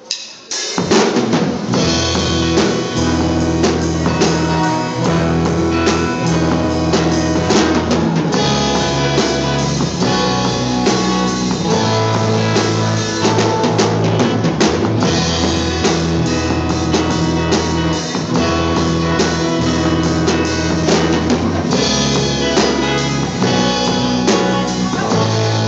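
A live band playing the instrumental introduction of a song, with drums and sustained bass notes; it starts under a second in.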